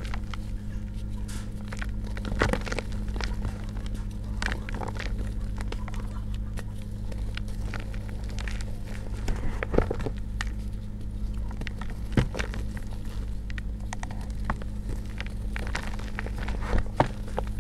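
Hands crushing and squeezing crumbly reformed gym chalk and dried pink cornstarch: soft crunching and crackling, with a few sharper crunches, over a steady low hum.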